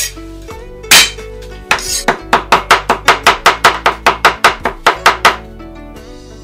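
Chinese cleaver mincing a garlic clove on a wooden cutting board: a heavy strike about a second in and another just before two seconds, then a quick even run of about sixteen chops, some five a second, that stops a little after five seconds. Background music plays throughout.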